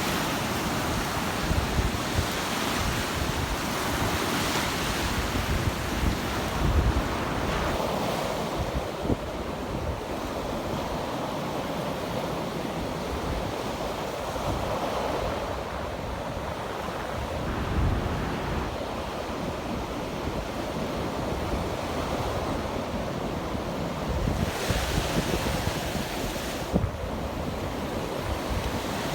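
Surf breaking and washing up on a beach, rising and falling in swells, with wind buffeting the microphone.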